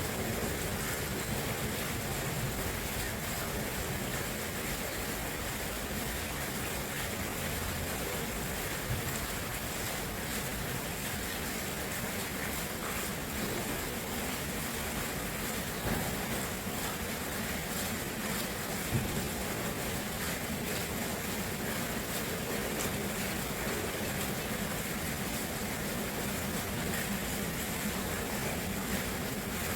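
Water rushing steadily, a constant even roar of flowing water.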